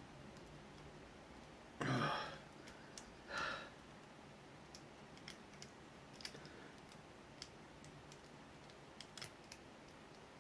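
Faint, scattered small clicks of lock picks working the pins of an ABUS 83-series brass padlock. Two louder short breath-like noises come about two and three and a half seconds in.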